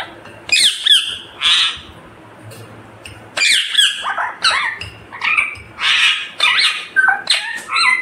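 Indian ringneck parakeet (rose-ringed parakeet) giving loud, high-pitched squawks and chattering calls: a short burst about half a second in, then a longer string of calls from about three and a half seconds on.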